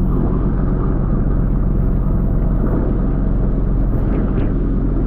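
Steady low rumble of a pole-and-line tuna fishing boat's engine, with an even hum under it. Water from a deck hose splashes onto the steel deck over the top.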